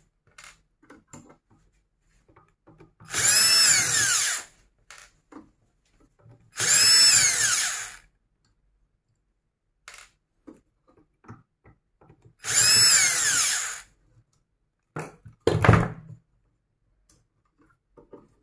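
Cordless drill-driver backing out screws in three short bursts, the motor whine rising and falling in pitch with each one. Light clicks of handling come between the bursts, and there is one sharp loud knock near the end.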